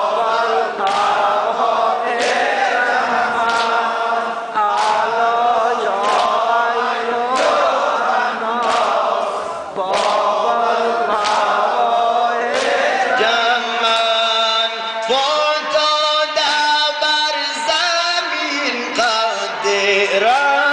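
A man chanting a Shia mourning recitation (noha) in a melodic, sung style, with a sharp beat keeping time about once a second.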